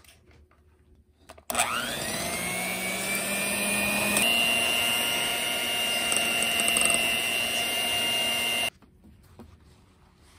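Electric hand mixer whisking whole eggs in a stainless steel bowl for cake batter. The motor starts about a second and a half in with a quick rising whine, jumps to a higher pitch about four seconds in, and cuts off suddenly near the end.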